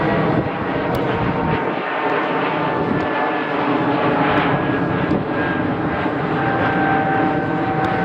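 Airplane flying over, a loud steady rumble with whining tones that slowly fall in pitch as it passes.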